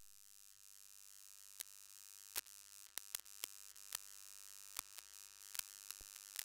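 Near silence: a faint steady electrical hum and hiss with scattered, irregular faint clicks.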